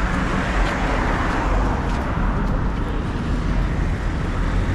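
Busy city street traffic: a steady low rumble of passing vehicles and engines, with a few faint clicks.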